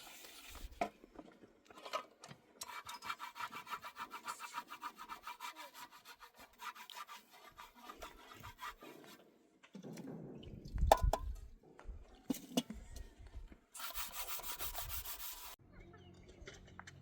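A hand tool scraping in quick, even strokes for several seconds, as in sawing or rasping. A heavy thud comes about eleven seconds in, and a short burst of harsher scraping follows near the end.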